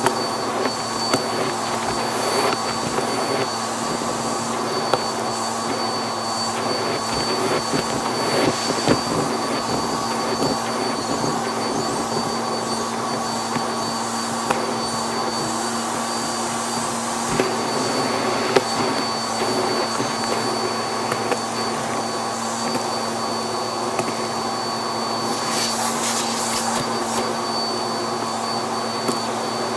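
Vacuum cleaner running steadily through its hose and crevice tool, a high whine over a low hum, as it sucks small bits of debris off a shag carpet. Now and then a sharp click sounds as a piece is pulled up the hose, and near the end there is a brief hissing surge.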